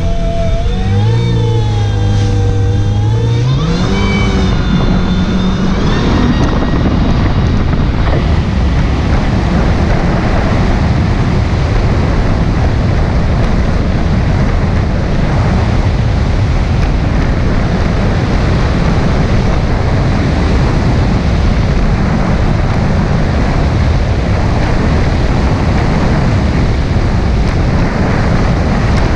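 Kawasaki jet ski engine running hard, its note rising over the first few seconds as the craft speeds up. It then settles into a steady, loud rush of engine and water noise at speed over the chop.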